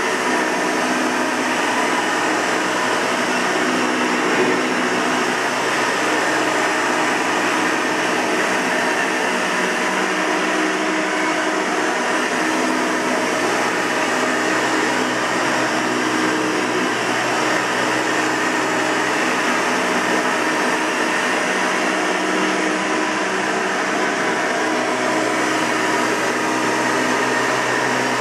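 Hoover Elite 200 bagged upright vacuum cleaner running steadily, its motor whine and airflow rush holding an even pitch and level.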